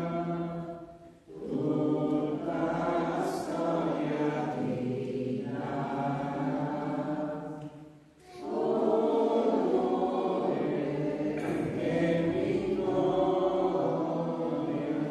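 A group of voices singing a hymn, the entrance hymn that opens a Catholic Mass. It comes in long phrases broken by short pauses about a second in and about eight seconds in.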